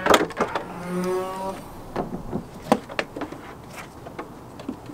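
BMW E46 M3 trunk latch releasing with a loud click, and the lid swinging up with a brief pitched groan. This is followed by a string of sharp plastic clicks and pops as the trim clips holding the trunk-lid liner are pried out.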